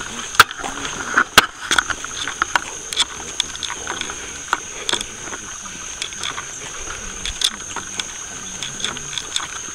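Several people's footsteps scuffing along a driveway, with scattered sharp clicks, the loudest about half a second and a second and a half in, over a steady high-pitched chorus of night insects.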